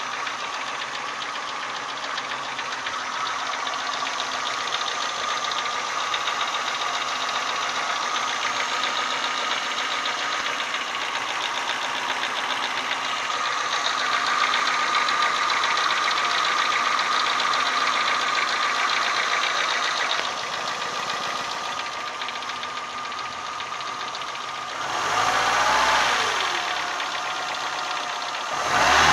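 Renault Symbol 1.4-litre eight-valve petrol engine idling hot with a fast, even knock riding on it. The knock appears only when the engine is warm; the owner does not know its cause. Near the end the engine is revved up and back down twice.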